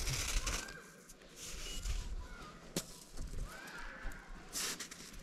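Snow crunching and scraping in a few short bursts as shoes and a hand press into a packed snow bank, with one sharp click a little before the midpoint.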